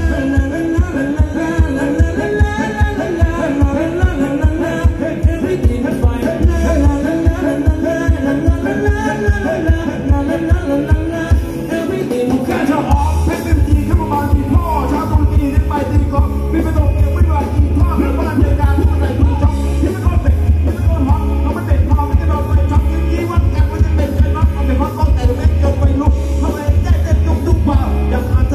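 Live band playing Thai ramwong dance music over a PA, with a singer and a steady, heavy bass-drum beat. About twelve seconds in the beat drops out for a moment, then comes back in.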